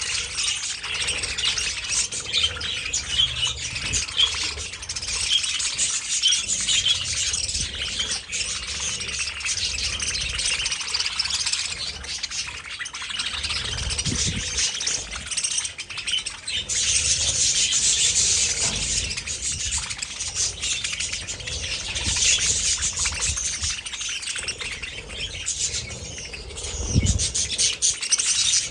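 A large flock of budgerigars chattering and chirping continuously in a dense, overlapping warble, with a dull thump near the end.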